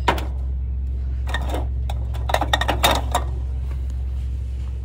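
Hard plastic cups knocking and clattering as they are handled on a metal shelf: one knock right at the start, then a quick run of clicks and taps about two to three seconds in, over a steady low hum.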